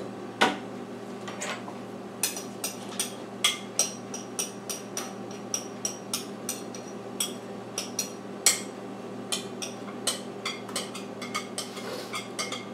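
A spatula scraping and tapping against a glass mixing bowl to get out the last of the cornbread batter. It makes a run of quick, irregular clicks, with a louder knock about half a second in and another about eight and a half seconds in.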